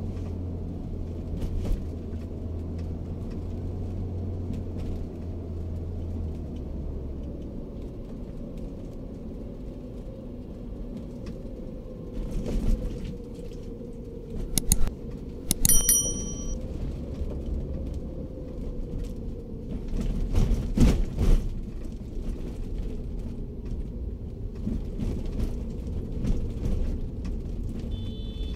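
Daihatsu Terios engine and road noise heard from inside the cabin, running steadily while engine braking down a long steep hill. A few loud thumps come in the second half. Midway there is a click and a short bell-like chime from a subscribe-button sound effect.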